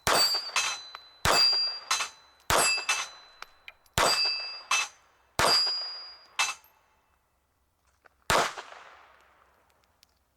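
A string of .32 ACP pistol shots from a Heckler & Koch HK4, fired at steel targets. Sharp reports come in quick, uneven pairs, mixed with the metallic clang and ringing of struck steel plates. One last report comes after a pause and dies away slowly.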